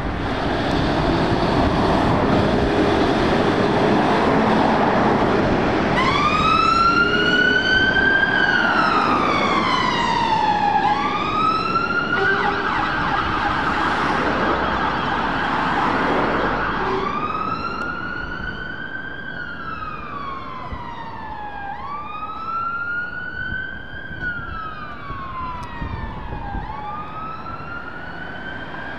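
Fire engine pulling away with its engine running, then about six seconds in its siren starts a slow wail, rising and falling about every four to five seconds. In the middle it holds a single steady tone for a few seconds before the wailing resumes, fading as the appliance moves off.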